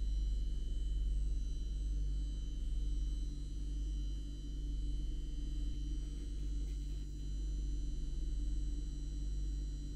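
Steady electrical hum in the driver's cab of a PESA Dart ED161 electric multiple unit: a deep low hum with several thin, high-pitched whining tones from the train's equipment above it.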